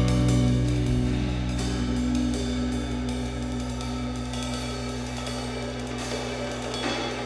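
Background music with drums and cymbals over a sustained bass, slowly fading out.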